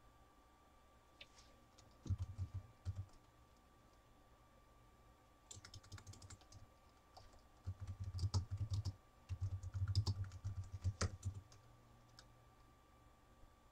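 Typing on a computer keyboard in four short runs of keystrokes separated by pauses; the keys land with a dull low thud.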